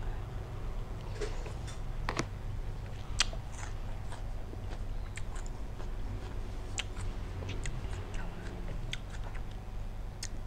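Close-up eating sounds: chewing a mouthful of shrimp salad in lime dressing, with scattered short wet clicks and crunches.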